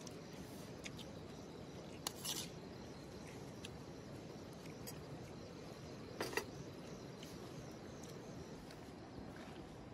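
Faint steady background hiss with a few scattered sharp clicks and two short crackles, about two and six seconds in.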